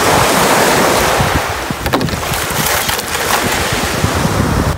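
Wind buffeting the microphone: a steady rushing hiss with uneven low rumbling, and a couple of faint clicks near the middle.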